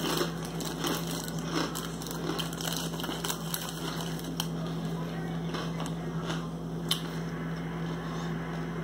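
Crunchy rice cracker being chewed with the mouth close to the microphone, in short crackly crunches over a steady low hum, with a sharp click about seven seconds in.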